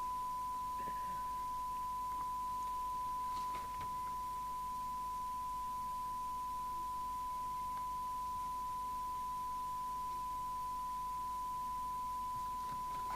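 Steady 1 kHz test tone, the FM test modulation used while aligning a CB radio, held at an even level throughout, over a faint low hum.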